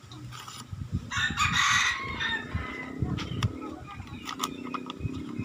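A rooster crows once, starting about a second in and lasting about a second, followed by lower, quieter fowl calls.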